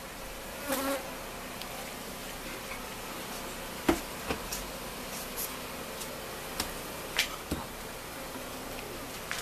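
Honeybees buzzing in a steady drone around opened hives, with a few sharp knocks and clicks as the wooden hive covers are lifted and set down; the loudest knock comes about four seconds in.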